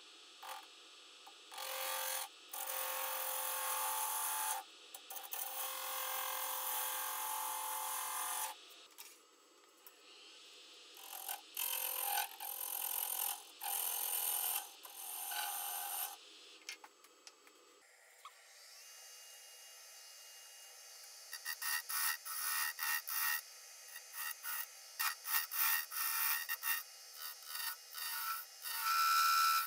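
A turning tool cutting a spinning segmented wood vase blank on a lathe. The first half holds long continuous cuts of several seconds each; from about two-thirds in there is a run of many short, quick strokes.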